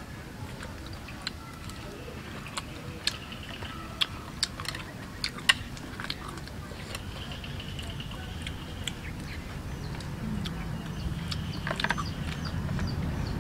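Eating sounds: chewing of pig skin salad, with scattered sharp clicks of chopsticks and spoon against the metal tray. A low rumble grows in the last few seconds.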